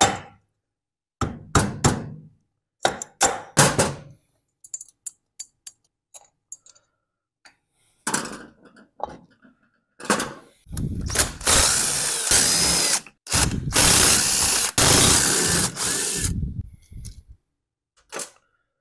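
Several sharp hammer blows on a chainsaw's crankshaft nut while its flywheel is pried, knocking the flywheel loose from the crank, followed by light clicks of parts being handled. Then a cordless drill-driver runs in a few spells, the longest about three seconds, as the saw's housing screws are driven out.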